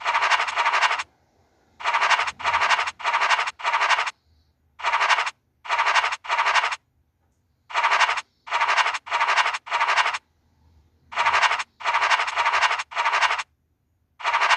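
Scratch-off sound effect of the FDJ Illiko scratch-card game "Cash" as hidden numbers are uncovered. It comes as short scratching strokes of about a third of a second each, in quick runs of two to four with brief pauses between runs.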